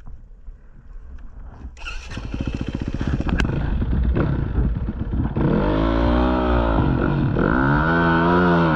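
Dirt bike engine running low, getting louder about two seconds in, then revving up and down repeatedly from about five seconds in as the bike pulls away.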